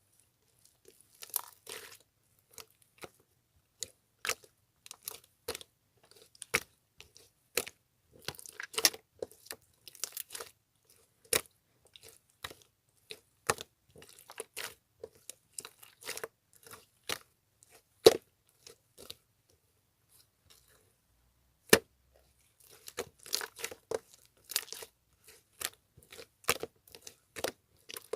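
Two-layer slime being pressed, folded and stretched by hand, giving irregular sharp clicking pops and crackles, with a pause of a few seconds a little past the middle.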